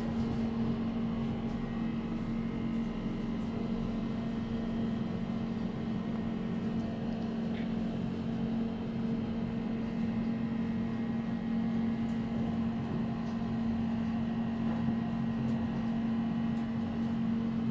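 Passenger elevator car descending, a steady low mechanical hum inside the cab throughout the ride.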